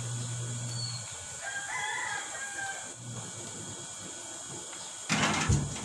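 A rooster crows once, from about a second and a half in, just after a low steady hum stops. Near the end comes a short, loud burst of noise lasting about half a second.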